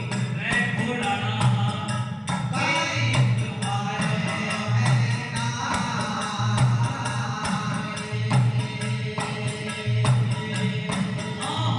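Devotional folk bhajan music: a steady, even beat of drum thuds and jingling tambourine-like percussion under a melody line.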